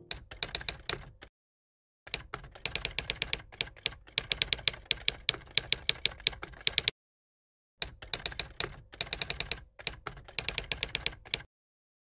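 Typewriter sound effect: keys clacking in rapid runs of keystrokes, with two short dead-silent pauses and a stop just before the end.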